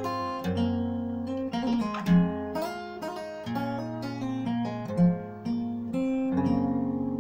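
Fingerstyle acoustic guitar playing a traditional Irish tune, a picked melody over bass notes, with two accented low notes. About six seconds in, the picking settles into a quicker, even run of notes.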